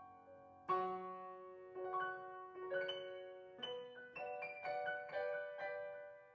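A c1977 Yamaha U3 upright piano being played: a few notes and chords struck about a second apart, each ringing and fading, then a quicker run of notes in the second half.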